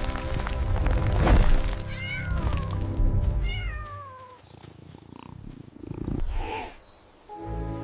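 A cat meowing twice, each meow falling in pitch, over background music that fades out about halfway through.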